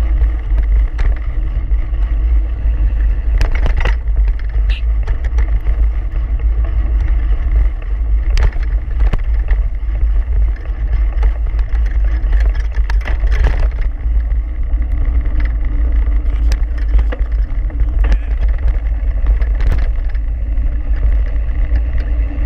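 Wind and road noise on a handlebar-mounted GoPro riding fast over a dirt trail: a steady heavy rumble, with scattered sharp clicks and rattles from the bike.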